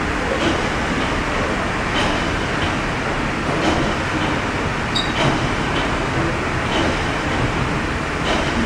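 The 1946 Rankin & Blackmore triple-expansion steam engine of the paddle steamer Waverley running under way, heard from its engine room. It makes a steady mechanical clatter, with sharp clicks every second or two.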